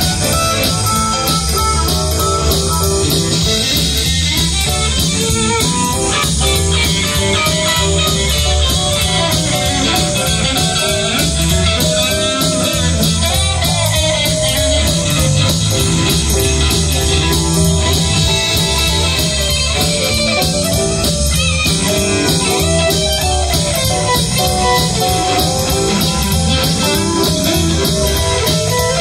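Live blues band playing an instrumental stretch with no singing: an electric guitar leads over bass guitar, keyboard and drum kit.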